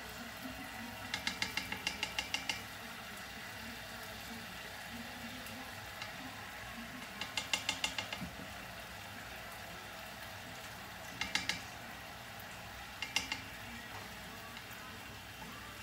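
A stirring utensil clicking against a pan as apricot jam is stirred into cooking shallots, in quick runs of ticks: about ten in a row near the start, about eight more midway, then two short runs of three. A faint steady sizzle runs underneath.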